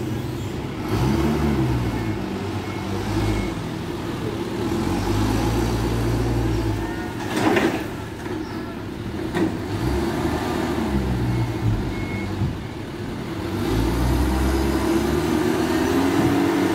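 Forklift engine running, revving up and falling back several times as the forklift drives and manoeuvres. A sharp knock is heard about halfway through, and a lighter one shortly after.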